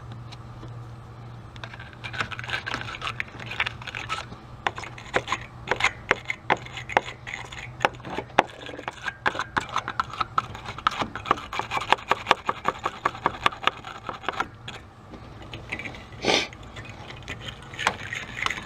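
Wire battery terminal cleaning brush scrubbing a heavily corroded battery terminal: fast scratchy strokes with clicks, a pause, then one louder knock and more scrubbing near the end.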